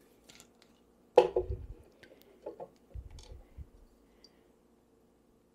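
Small kitchen handling sounds as a bottle of red wine vinegar is opened and a plastic measuring spoon readied: a few light clicks, one sharp clack about a second in, and soft knocks around three seconds, over a faint steady hum.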